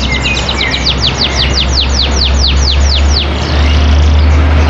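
A caged songbird sings a fast series of high, downward-sliding notes, about five a second, stopping a little over three seconds in. Under it runs a steady low engine hum, which grows louder about three and a half seconds in.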